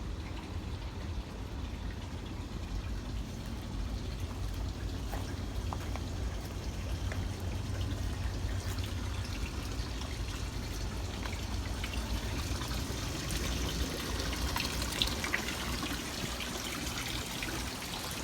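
Water trickling steadily, with a low rumble underneath and a few faint clicks.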